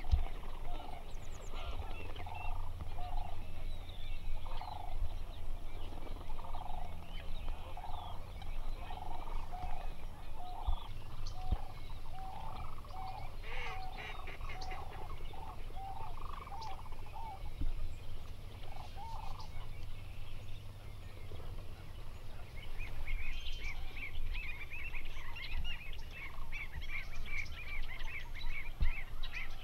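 A mixed flock of wetland waterbirds calling: many short calls repeated over and over through the first two-thirds, then a busier, faster chatter of higher calls near the end, over a steady low rumble.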